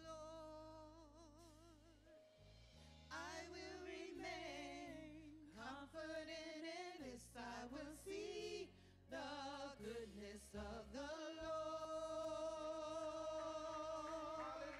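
Gospel worship singing by a small group of women vocalists with keyboard and guitar accompaniment, the voices in vibrato, ending on a long held note over the last few seconds.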